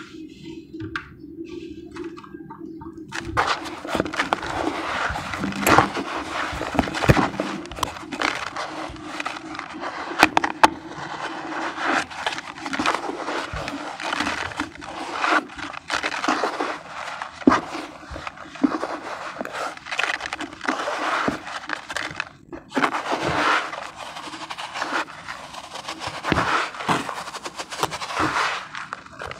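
Damp sand squeezed and crumbled by hand: a steady gritty crunching full of small crackles that starts about three seconds in, with a brief pause about three-quarters of the way through.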